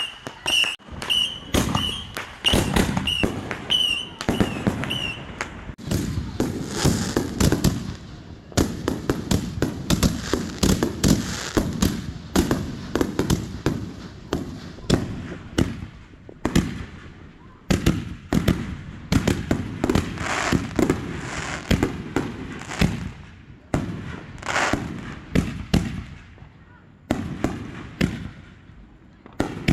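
A dense barrage of aerial fireworks, with many launches and bursts banging and crackling in quick succession. A high chirp repeats about twice a second for the first five seconds.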